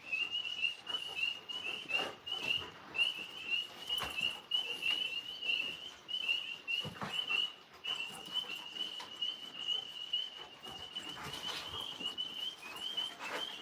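A steady chorus of rapid, high-pitched chirps repeating without a break, with a few faint knocks.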